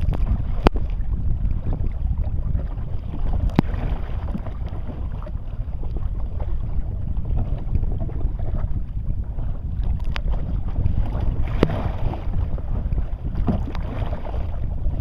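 Wind buffeting the microphone, a steady low rumble, with water noise around a kayak and about four sharp knocks spread through the stretch.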